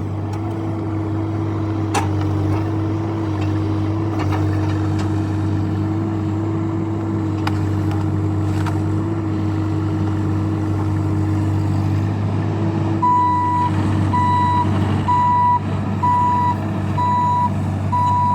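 Bobcat E26 mini excavator's diesel engine running steadily under a held whine. About two-thirds of the way in, its travel alarm starts beeping, a single high tone repeating a little over once a second, as the machine starts to travel.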